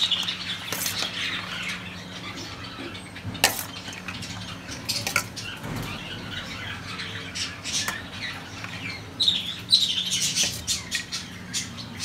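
A metal spoon scraping and clinking against a steel plate as soft food is scooped out, in scattered sharp clicks. Budgies chatter and squawk in the background, loudest near the start and again about nine seconds in.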